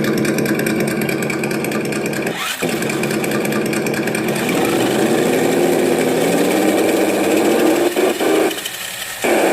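Simulated engine sound from an ESS Dual sound module, played through the speakers of an RC monster truck. The engine note runs steadily, dips briefly about two and a half seconds in, climbs in pitch as if revving around the middle, and cuts out for a moment near the end.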